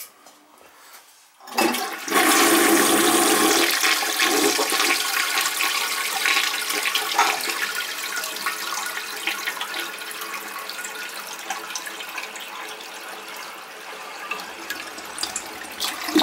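American Standard toilet being test-flushed with paper in the bowl after being reset on a repaired flange. About a second and a half in the flush starts with a loud rush of water, which slowly eases as the bowl drains.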